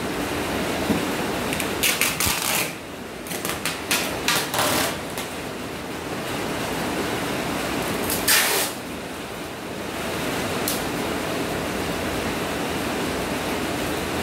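Packing a plastic-wrapped box by hand: clear packing tape pulled off the roll in a few short screeching strips, with plastic wrap handled in between. A steady hiss underneath gets a little louder about ten seconds in.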